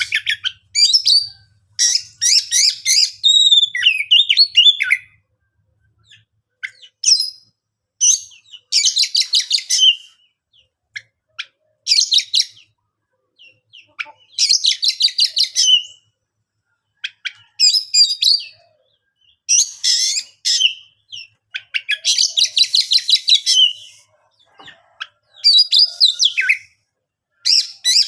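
Oriental magpie-robin (kacer) in full song. It sings phrase after phrase of fast whistled notes and rapid, dense trills, each burst one to three seconds long, with short silent pauses between.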